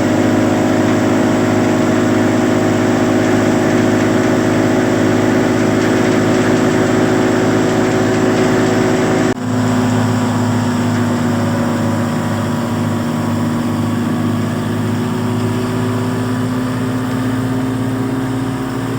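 Wheat thresher machine running steadily, a loud continuous mechanical drone with an engine hum. It breaks off for an instant about halfway through, then carries on.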